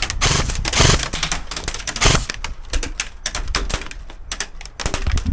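Airsoft guns firing rapid bursts, with BBs cracking and ricocheting off the surfaces around the player: a dense, irregular clatter of sharp clicks.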